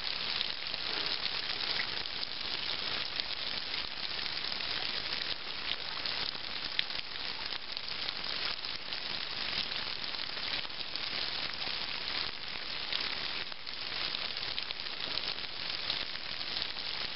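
Waterfall spilling in thin streams over mossy rock ledges and spattering onto the rocks below: a steady hiss of falling water sprinkled with small splashes.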